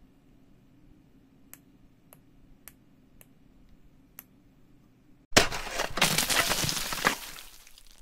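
Five faint clicks of a small tactile push button being pressed, a little over half a second apart, then a sudden loud glass-shattering sound effect about five seconds in that rings on and fades out over about two seconds.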